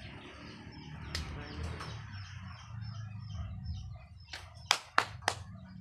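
Pigeons taking off from a loft, with wing flutter and bird chirps over a low rumble. Near the end, four sharp claps come in quick succession.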